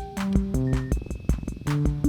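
Electronic music: a Roland TR-6S drum machine keeps a steady beat of kick thumps and hi-hat ticks while Behringer analog synthesizers play short notes that step up and down in pitch, with a buzzy pulsing tone about a second in.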